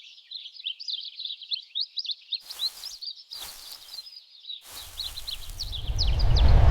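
Small birds chirping in a quick, busy stream of high, short notes. A low rumbling noise swells up over the last two seconds and becomes the loudest sound.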